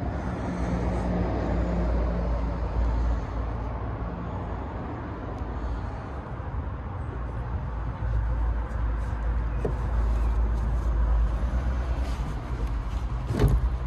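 1957 MGA's four-cylinder engine running with a steady low rumble that swells and eases, and one sharp knock near the end.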